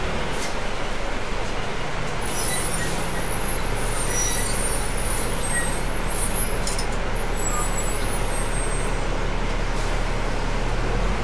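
Inside a city bus while it runs: steady engine hum and road noise, with high-pitched hissing and squeaks from about two seconds in to near the end.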